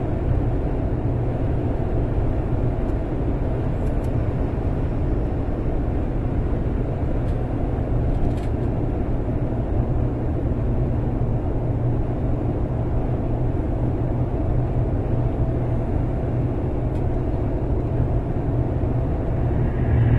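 Steady cabin noise of a car driving along a highway: engine and road noise blended into an even low drone.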